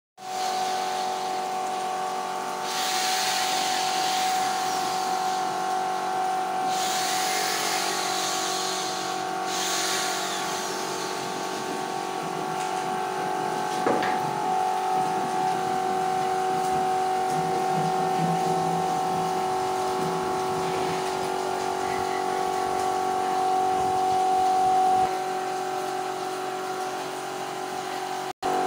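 A steady mechanical hum made of several held tones, with passages of hissing noise swelling over it about three and seven seconds in, and a single sharp tick midway.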